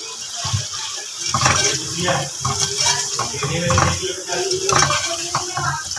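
Metal spoon stirring and scraping beef pieces and fried onions in a cooking pot: a run of irregular wet scraping strokes, starting about half a second in.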